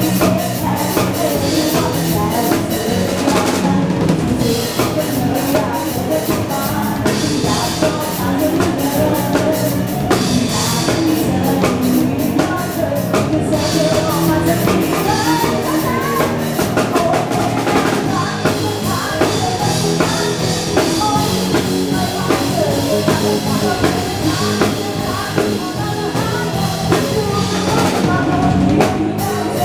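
A band playing upbeat dance music, with drum kit and bass keeping a steady beat.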